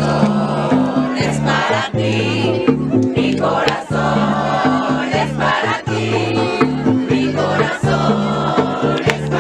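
Music with singing voices over a bass line that moves note by note.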